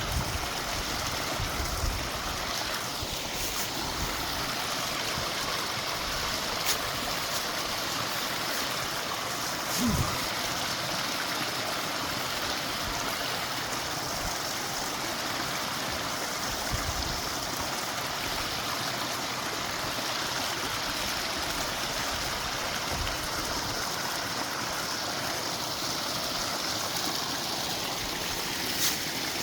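Creek water running steadily over rocks, with a dull thump about ten seconds in and a few light clicks.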